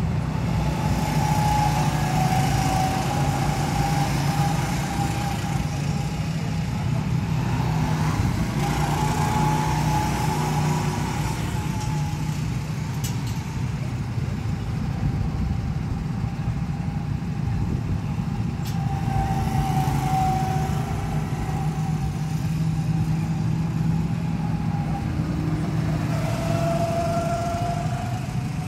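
Small engines of go-karts running on the track, a steady low hum with a higher whine that rises and falls in waves as karts come round and speed up.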